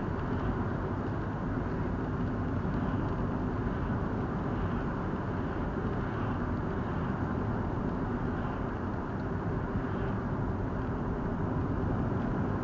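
Steady road noise of a moving car, heard from inside the cabin through a dashcam microphone: the tyres running on the road, with the engine underneath.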